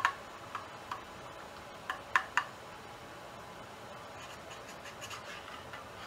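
Stainless steel whistling kettle heating on an electric stove element, giving irregular sharp ticks over a faint steady hiss as the water comes toward the boil. The ticks are most frequent in the first couple of seconds and fainter later.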